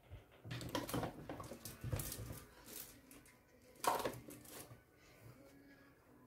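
Paper and craft supplies being handled on a tabletop: irregular rustling and scraping with light knocks, and a louder clack about four seconds in.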